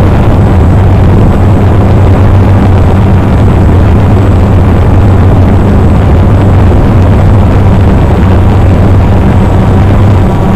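Multirotor drone's electric motors and propellers running steadily while it hovers, heard loud and close from the camera mounted on it: a constant low hum over a dense rush of noise.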